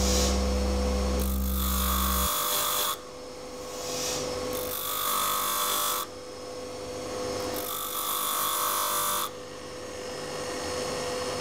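Bench grinder running with a steady whine while a metal corkscrew is pressed to the wheel in three grinding passes of about two seconds each. The passes grind the maker's signature mark into the sommelier corkscrew.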